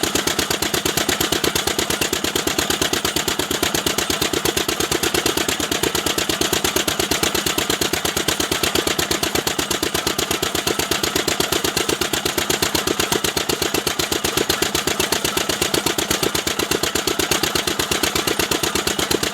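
Engine of a pressed-brick making machine running steadily, with a rapid, even chugging beat.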